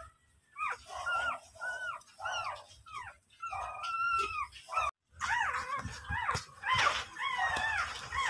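Newborn puppies squeaking and whimpering: short, high-pitched cries that rise and fall, several a second, one after another. The sound drops out briefly about five seconds in.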